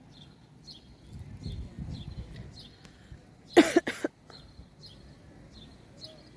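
A person coughs twice in quick succession, loudly, about three and a half seconds in. Through it a bird chirps over and over, about twice a second.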